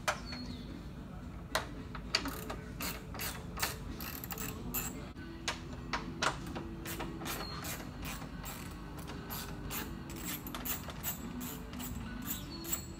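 Ratchet wrench clicking in short, irregular runs while undoing the bolts that hold a pickup's grille, with faint background music.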